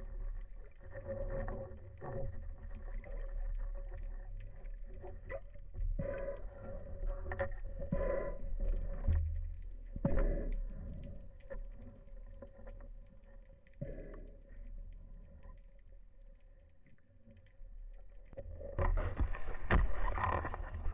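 Underwater noise picked up by a camera mounted on a speargun: a low rumble of water movement with a faint steady hum and scattered clicks and knocks. It grows louder and busier with a rush of water near the end.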